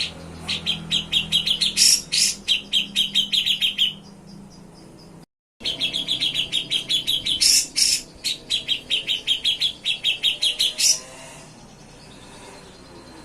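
A cucak jenggot (grey-cheeked bulbul) singing two long runs of rapid, sharp, evenly repeated chirps, several a second, each lasting a few seconds. A few louder, harsher notes stand out, and there is a brief cut to silence between the two runs.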